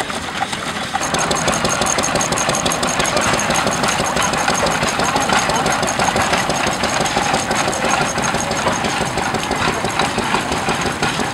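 Vintage stationary engine running, with a quick, even knocking beat that grows louder about a second in.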